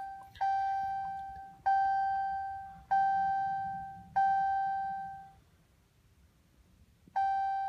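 A 2014 Ram 2500's dashboard chime sounding with the key on, before the engine is cranked. It is a clear single tone struck four times about a second and a quarter apart, then once more after a pause of about three seconds.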